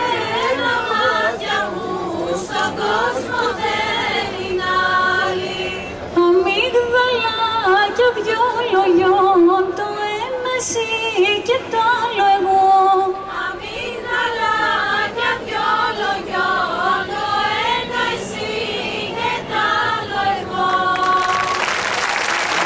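Live Greek folk band of clarinet, violin, lute and percussion playing a kalamatianos in 7/8, with voices singing along. Applause breaks out near the end as the song finishes.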